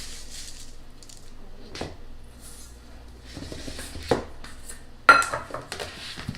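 Kitchen utensils and dishes knocking and clinking while dry ingredients go into a mixing bowl, with a few soft knocks and one louder metallic clink that rings briefly about five seconds in.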